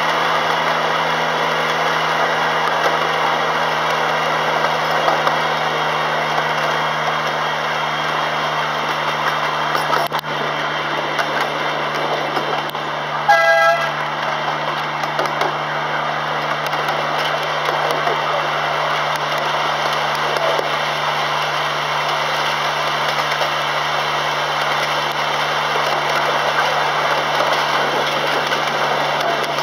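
Miniature railway locomotive running steadily with a constant engine hum as the train moves along the track. Its horn gives one short toot about 13 seconds in.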